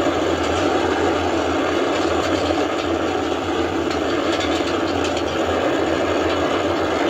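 Antares 230+ rocket's first stage, its two RD-181 engines, running at full thrust just after liftoff: a loud, steady, crackling rocket noise with a deep rumble underneath.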